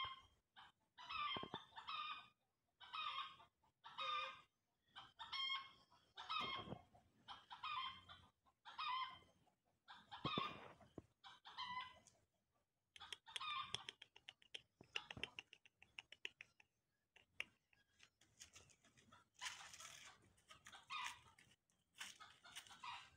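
Chickens clucking, a short call about every second for much of the time, then more scattered calls mixed with quick runs of clicks.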